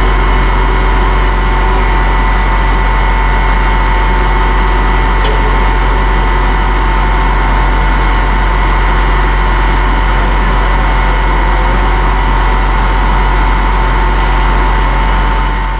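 Tractor engine running steadily at a constant speed, a loud, even drone.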